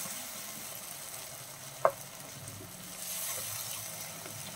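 Chopped onions, tomatoes and green chillies sizzling in oil in a non-stick kadai as a wooden spatula stirs them, with one sharp tap a little under two seconds in. The tomato masala is being sautéed down until its raw taste goes.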